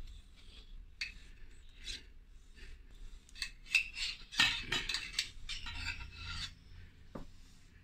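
Metal spoon and scoop scraping and rubbing against a stainless-steel mixing bowl through thick muffin batter, in irregular strokes, with a single sharp click near the end.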